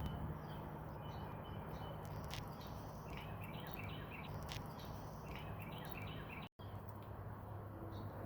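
Several birds giving agitated calls: clusters of short, repeated chirps over a steady low hum. All sound cuts out for a moment about two-thirds of the way through.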